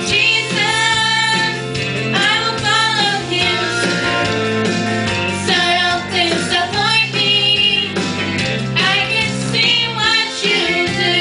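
Two female voices singing a gospel song together through microphones, in phrases with held notes, over instrumental accompaniment.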